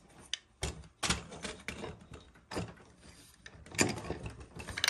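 Irregular clicks and clunks of metal engine parts being handled by hand: the clutch gear, clutch plate and aluminium clutch cover of a 66/80cc motorized bike engine being turned over and knocked together.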